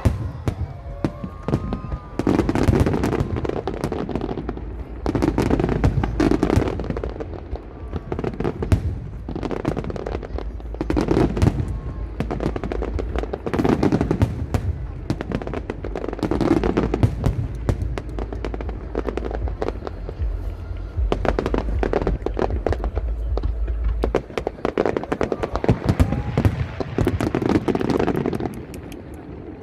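Aerial fireworks going off in rapid succession: many sharp cracks and crackles with heavier booming bursts every couple of seconds.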